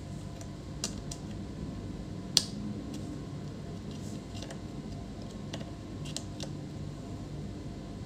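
Multimeter test probe tips tapping and scraping on a laptop motherboard's components: a few light clicks, the sharpest about two and a half seconds in, over a steady low hum.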